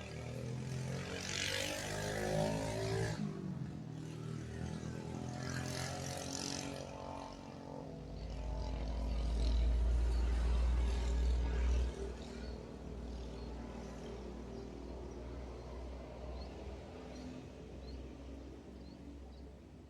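Motor vehicles passing, their engine note swelling and fading twice in the first seven seconds, then a deep low rumble from about eight seconds in that cuts off abruptly a few seconds later.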